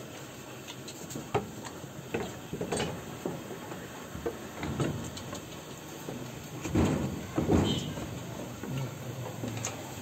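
Goat kids jostling around a feeding bottle: irregular knocks, hoof taps and scuffling on a plank floor, with two louder scuffles about seven seconds in.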